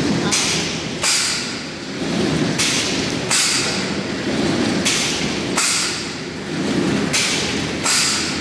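Plastic bag making machine cycling: sharp hissing clacks come in pairs, the two about three-quarters of a second apart, repeating about every two and a quarter seconds over a steady mechanical churn.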